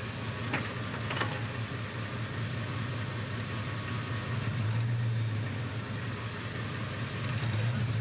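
Off-road 4x4's engine running low and steady under light throttle as it crawls up a rock obstacle, swelling a little about five seconds in and again near the end. Two faint clicks come about half a second and a second in.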